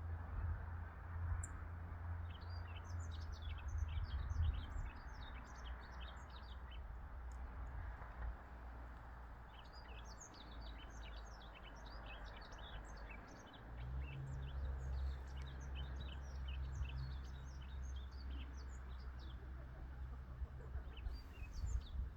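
Yellow-throated bunting singing: two bouts of quick, high twittering notes, a short one a few seconds in and a longer one from about ten seconds, over a low steady rumble.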